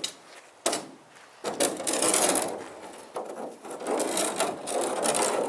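A sharp knock, then a few seconds of rattling and scraping as something is handled and set in place.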